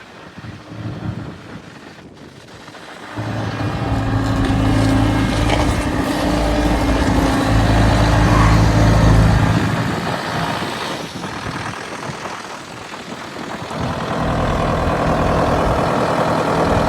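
Diesel engine of a Bobcat S185 skid steer loader running, quiet for the first three seconds, then coming up to a loud, steady higher throttle; it eases off between about ten and thirteen seconds and comes up again near the end.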